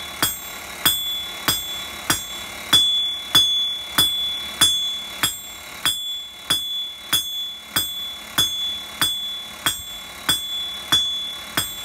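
Hand-hammer blows on a hot steel bar over an anvil, struck in a steady rhythm of roughly one and a half blows a second, the anvil ringing after each strike.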